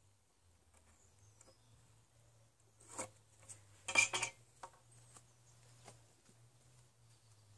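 A few light clinks and knocks as a metal carpenter's square is handled and set down on a wooden beam, the loudest cluster about four seconds in.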